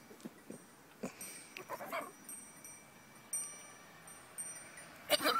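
Goats in a pasture, heard at close range: a few soft clicks and a brief pitched sound early on, and a sharp burst followed by a short call near the end. Faint high ringing tones come and go throughout.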